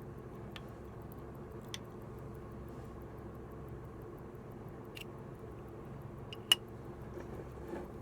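A few separate sharp clicks of small hard parts being handled during disassembly, the loudest about six and a half seconds in, over a steady low hum.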